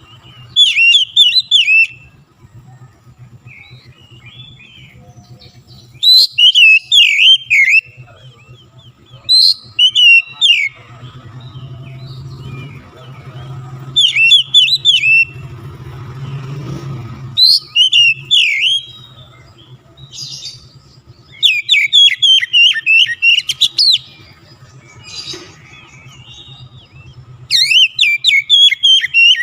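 Oriental magpie-robin singing loud phrases of rapid, sweeping whistled notes, each phrase lasting one to two seconds and repeated about every three to five seconds, seven phrases in all.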